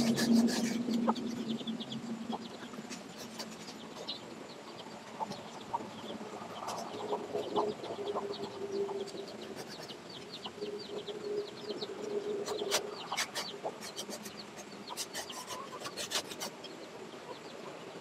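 Chickens clucking, with one hen's drawn-out call lasting several seconds in the middle. At the start a hand pruning saw is rasping through a branch, and it stops about a second in.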